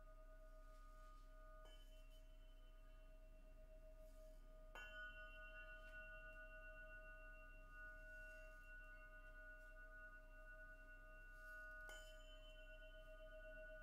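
Quartz crystal singing bowls ringing faintly with sustained pure tones, the lowest one wavering. A soft strike about two seconds in, a stronger one about five seconds in, and another near the end each set a further higher tone ringing.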